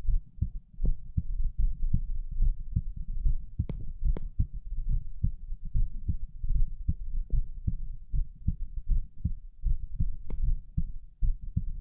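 A person's heart beating, heard close up at the chest during abdominal exercises: a steady, even run of low thumps. There are a few sharp clicks, twice close together a few seconds in and once near the end.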